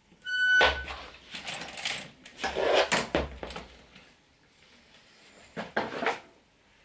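Metallic clunks and rattles in three short bursts, with a brief high-pitched beep about half a second in.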